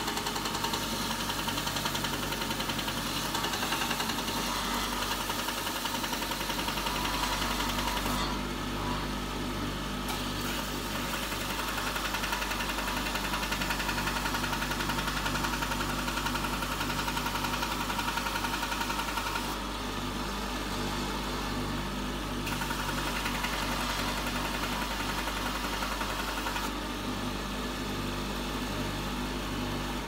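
Electric grinder motor running steadily while a woodturning chisel is sharpened on it. A gritty hiss of steel being ground rides over the hum and drops away three times for a couple of seconds.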